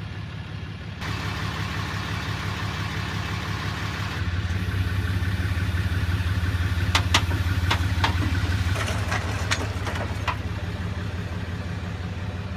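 Toyota Camry 5S-FE 2.2 L four-cylinder cranking on the starter, spinning quickly and evenly without catching: it turns over fairly easily with no compression, the sign of a snapped timing belt. A few sharp clicks sound in the second half.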